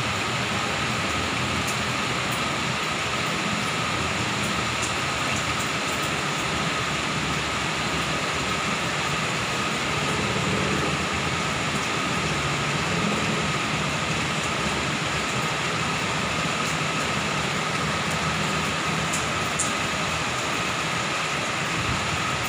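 Steady rush of heavy rain over a city, mixed with the low hum of traffic below.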